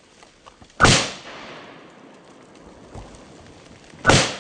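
Two 9mm pistol shots from a Glock 19 Gen 5, about three seconds apart, each trailing off in a short echo.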